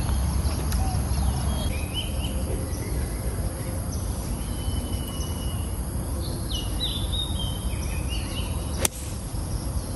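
Birds chirping over a steady low outdoor background noise. About nine seconds in comes a single sharp click: a pitching wedge striking a golf ball.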